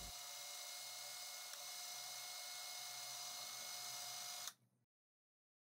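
Faint, steady whine of a cordless drill's motor running, which cuts off abruptly about four and a half seconds in.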